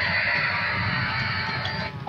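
Music with a plucked-guitar sound, playing from a battery-powered Thomas the Tank Engine transforming robot toy while it transforms, over a steady low rattle.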